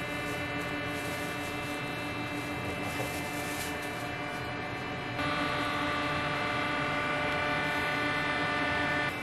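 Steady machine hum at one fixed pitch. About five seconds in it steps up louder and brighter, and it drops back just before the end.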